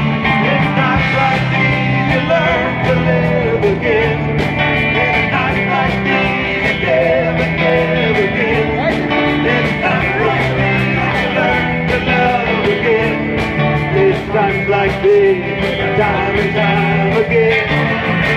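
Live rock band playing: guitars over a Pearl drum kit keeping a steady beat, with a melody line winding above.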